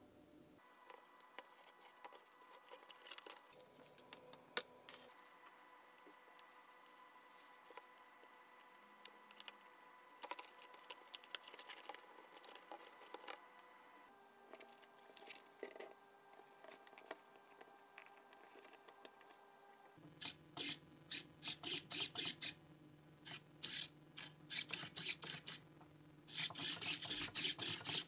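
Small clicks and taps of hand work on a steel pushrod and cardboard fuselage, then three groups of louder short scraping bursts in the last eight seconds.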